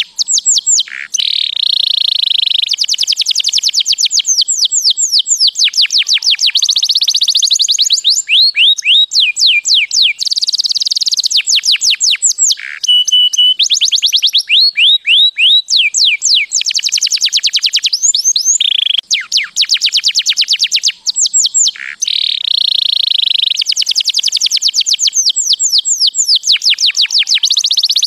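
Domestic canary singing: long, rapid trills of repeated notes that each sweep downward in pitch, the phrases changing speed and pitch every few seconds with brief breaks between them.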